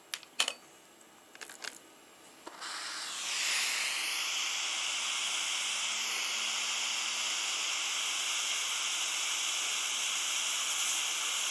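A few sharp clicks, then about two and a half seconds in a jeweller's gas soldering torch comes on, swelling over the next second into a steady hiss as its flame heats the ring's seam to flow the solder.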